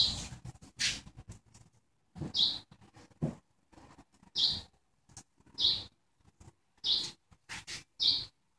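A bird chirping: short, high chirps repeated every second or so, with a few faint knocks in between.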